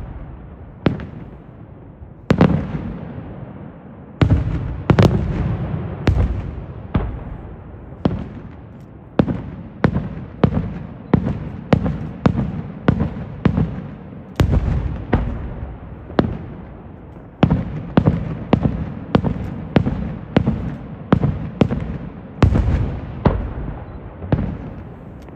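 Aerial firework shells bursting in a long series of sharp bangs, each trailing off in a low rolling echo. The bangs come about once a second at first, then quicken to roughly two a second for most of the stretch.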